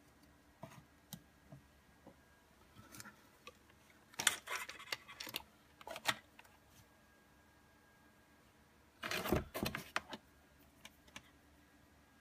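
Handling noises: scattered small clicks, taps and rattles as a plastic charger plug is pushed into a wall socket and its cable moved about, with louder spells of rattling about four seconds in and again about nine seconds in.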